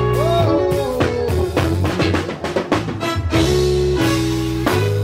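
Live band music: a drum kit keeping a steady beat under sustained bass notes, with a guitar or keyboard line that bends in pitch early on.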